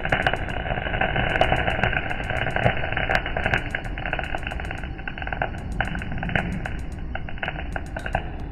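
Gas welding torch flame hissing steadily on a car exhaust silencer, with a constant crackling of sharp pops and clicks.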